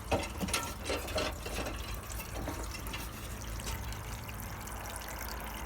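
Water from a garden hose running and trickling steadily along a rain gutter, with a few knocks near the start.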